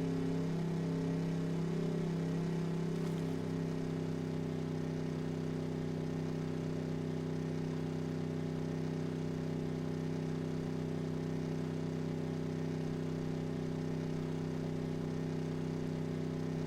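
A steady hum at several fixed pitches that wavers for the first three seconds or so, then holds even.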